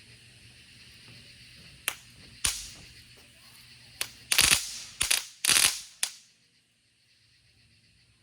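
A faint fizzing hiss, then about six sharp firework bangs in an uneven run over a few seconds: small consumer fireworks going off.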